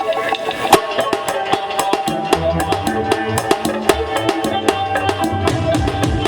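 Live band music: fast, steady drum and percussion strikes over held keyboard notes, with a heavy bass line coming in about two seconds in.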